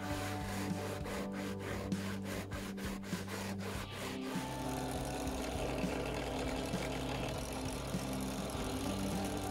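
Steel knife blade rubbed back and forth flat on an abrasive sharpening surface, in quick, even strokes. About halfway through it gives way to the steady hum of a drill press motor spinning a felt buffing wheel.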